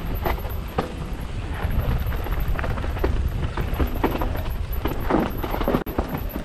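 Mountain bike riding down rocky dirt singletrack: tyres rolling over dirt and stones with frequent knocks and rattles from the bike, over a low rumble of wind on the microphone. The sound cuts out for an instant near the end.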